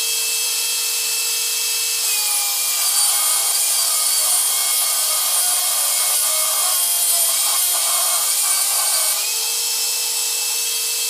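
Electric power tool running with a steady whine and hiss. From about two to nine seconds in its pitch sags, and wood rubbing and scraping join it.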